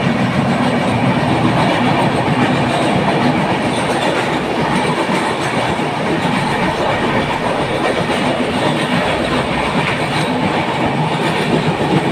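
Passenger train running fast through a tunnel, heard from an open coach doorway: loud, steady wheel-on-rail running noise.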